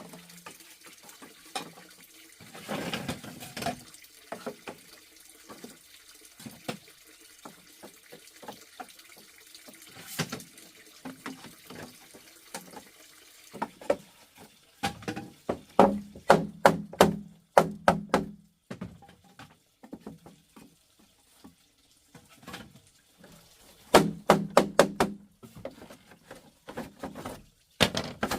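Water trickling and splashing with scattered light taps, then two bursts of quick knocks at about five a second, the loudest sounds, about halfway through and near the end.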